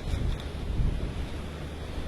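Gentle sea waves washing on a beach, with wind rumbling on the microphone.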